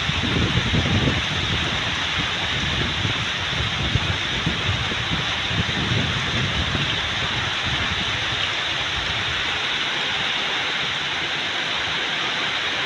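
Heavy storm rain pouring steadily onto trees and ground, with gusts of wind rumbling low over the microphone through the first half and dying away after that.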